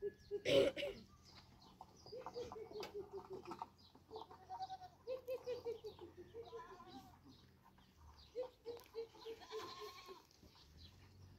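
Livestock bleating: three quavering calls with pauses between, each falling in pitch. A sharp knock about half a second in is the loudest sound.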